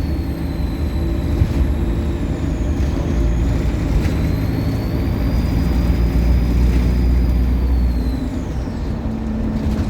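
Optare Solo bus's diesel engine pulling, with a high turbocharger whine that rises and dips with engine speed over a low engine drone. About eight seconds in the engine eases off and the whine falls away.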